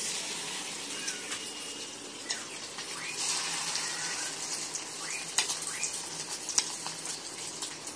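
Battered fish pieces deep-frying in hot oil in a kadai: a steady sizzle with scattered sharp pops and crackles, growing louder about three seconds in.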